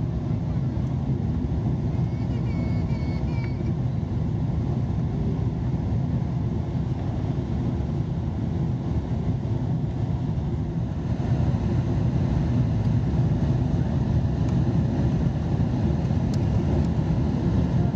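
Steady cabin noise inside a Boeing 777 airliner on its descent: the dull roar of the engines and the airflow past the fuselage, growing a little louder about eleven seconds in.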